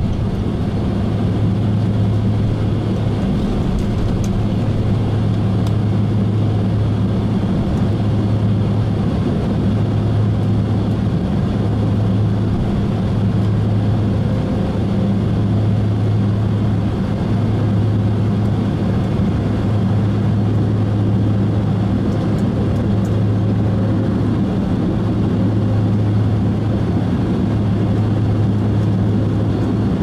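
Steady low drone and hum inside a jet airliner's cabin with the engines running on the ground, holding an even pitch and level with no spool-up.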